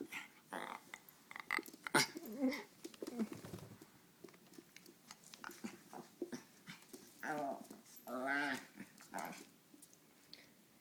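A dog and a puppy play-fighting: growls and whines with scattered short noises, and two longer drawn-out cries near the end.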